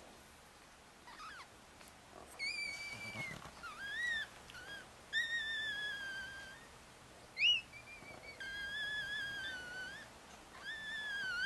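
Chihuahua whining: a series of high, drawn-out whines, each about a second long, with one short, sharp yelp about seven seconds in.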